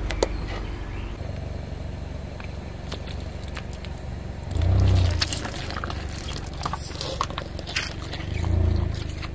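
A car tyre rolling over and crushing a row of plastic skull-shaped cups filled with water beads: a run of sharp plastic cracks and snaps, with two low rumbles from the car moving, about five seconds in and near the end.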